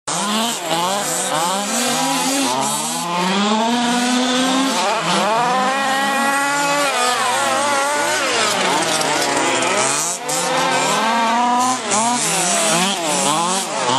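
Several quarter-scale RC race cars' small two-stroke gas engines running flat out together, their pitches rising and falling and crossing as the cars throttle off and on through the turns and pass by.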